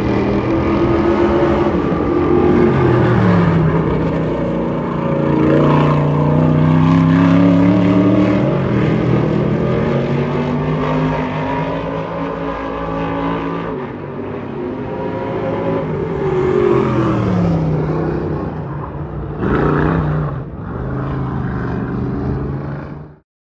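Several dirt-track race car engines running practice laps, their pitch rising and falling as they rev down the straights, lift for the turns and pass by. One car passes close and loud about twenty seconds in, and the sound cuts off abruptly near the end.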